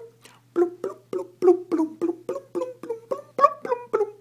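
A person making a quick run of popping sound effects with the mouth, each pop short and sharp with a ringing pitch, about three or four a second, going a little higher near the end.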